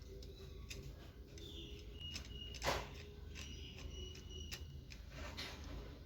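Faint ticks and small clicks of a screw being driven back into a blender's motor housing with a screwdriver, with one sharper click about two and a half seconds in and brief thin squeaks.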